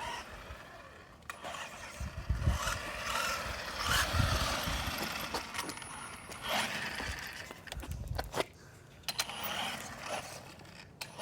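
WLtoys 14229 electric RC car driving: its motor and drivetrain whine rises and falls while the tyres scrape over the ground. Several low thumps come about 2.5, 4, 6.5 and 8 seconds in as it runs at and over a ramp.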